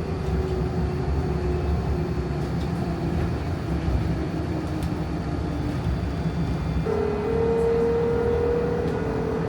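Rail vehicle running: a steady low rumble with a thin electric whine that steps down in pitch over the first six seconds, then a louder whine that starts about seven seconds in and climbs slightly.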